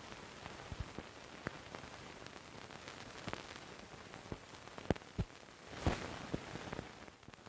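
Steady hiss with scattered, irregular crackles and pops: the surface noise of an old film soundtrack, with no dialogue over it.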